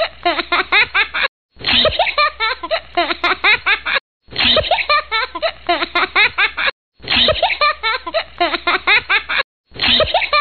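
Laughter played on a loop: the same few seconds of quick, giggling laugh pulses repeat identically, broken by a short silent gap about every two and a half seconds.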